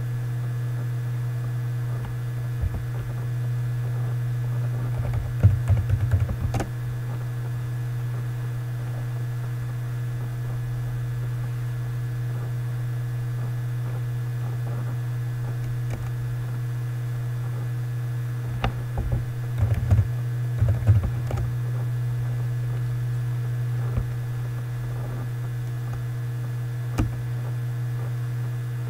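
Typing on a computer keyboard in two short bursts of rapid key clicks, with a few single clicks besides, over a steady low electrical hum.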